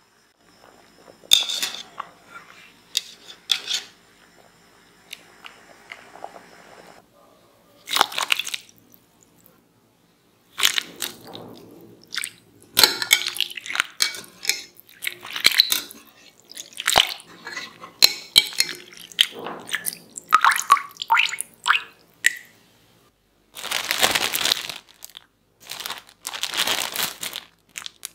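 Kitchen handling of boiled potato sticks: a wire skimmer scoops them out of a glass bowl of water, giving a run of clicks, clinks, splashes and scrapes. Near the end come two longer rustling stretches as the potatoes go into a plastic bag.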